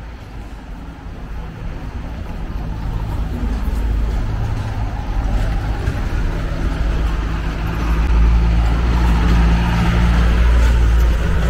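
Diesel engine of an old Mercedes-Benz light box truck running as the truck drives up the cobbled street toward the listener, its low hum and tyre noise growing steadily louder and loudest near the end.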